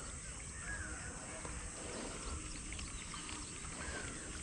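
Quiet outdoor background with birds giving short, scattered chirps.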